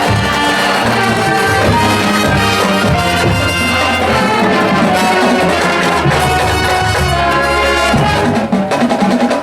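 Marching band playing: brass, with low brass and trumpets, over drums. A little after eight seconds the held brass notes stop and the drums carry on with sharp, choppy hits.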